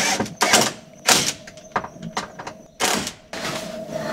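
A woman's breathy sighs and exhalations, several short ones about a second apart and a longer one near the end, over a faint steady hum.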